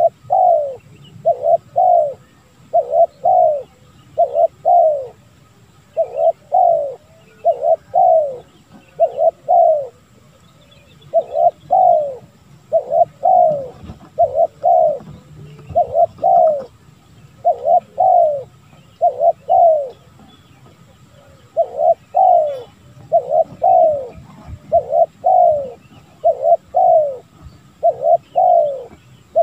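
Spotted dove cooing over and over with hardly a pause: phrases of two or three short, falling coos, repeated about every second.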